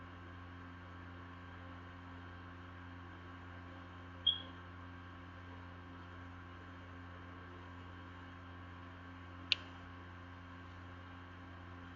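Steady low electrical hum with faint hiss, broken by a short high ringing tick about four seconds in and a single sharp click about nine and a half seconds in.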